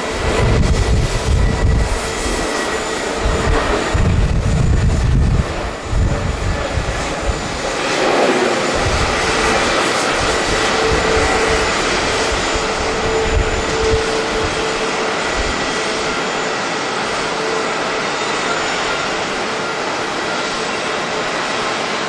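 Airbus A320neo-family airliner on takeoff: its jet engines run at takeoff power, a steady loud rush with a humming tone, as it lifts off and climbs away. Strong wind buffets the microphone with low rumbling gusts in the first few seconds.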